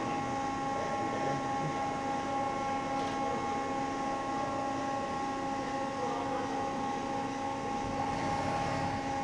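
Deckel Maho DC 70V CNC machining center running, its spindle turning a tool over a clamped workpiece. A steady whine of several held tones sits over an even mechanical hiss.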